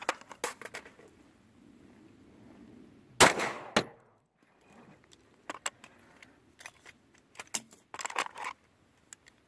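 A gunshot about three seconds in, a sharp crack with a short ringing tail and a smaller crack just after, among scattered small clicks and knocks.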